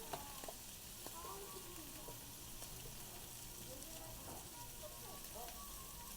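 Whole pork belly sizzling on a large iron griddle: a steady frying hiss, with one sharp tick just after the start and faint voices behind.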